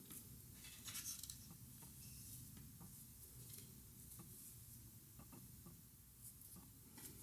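Faint crochet handling sounds: cotton yarn rubbing over a crochet hook, with a few small clicks and a brief scratchy rustle about a second in and again near the end, over low room hiss.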